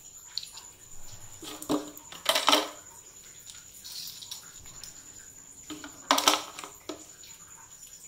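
Rose-ringed parakeet pecking at and cracking almond pieces on a tile floor, with two loud sharp clatters about four seconds apart and a few smaller clicks.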